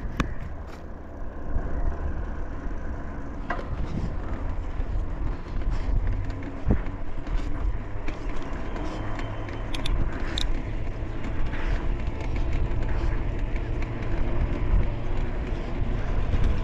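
Steady wind rumble on the microphone and running noise while riding along a paved road, with a few short clicks.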